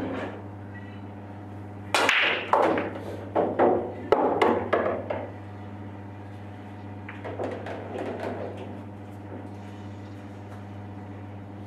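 Pool break shot: about two seconds in the cue ball cracks into the 9-ball rack, followed by a rapid flurry of balls clacking against each other and the cushions for a few seconds. A few softer knocks come later as the balls roll out, all over a steady low hum.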